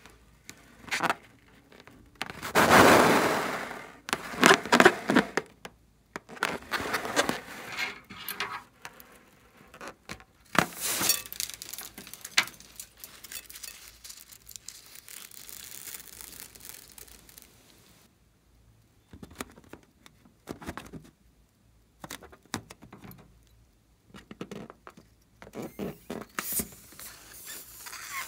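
Rubber balloons being handled, opened and squeezed out over a glass bowl of slime, with small foam beads tipping onto it: irregular bursts of crackling, scraping and squishing. The loudest burst comes about three seconds in.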